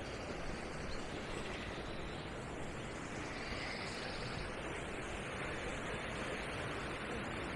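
Steady rushing of a brook tumbling over stones.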